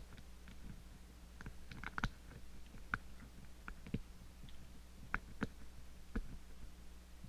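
Lock pick working the levers of an Ingersoll 10 lever padlock: small, sharp metallic clicks and ticks at irregular intervals as levers are pushed down and set.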